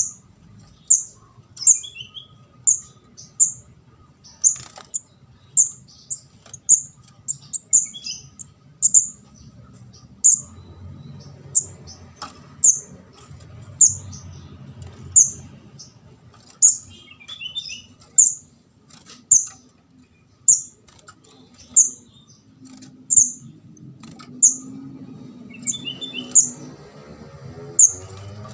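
Juvenile kemade jawa ('ndas abang') calling: short, very high chirps repeated about once a second, with an occasional lower twittering note, the chick call used as a lure for trapping birds.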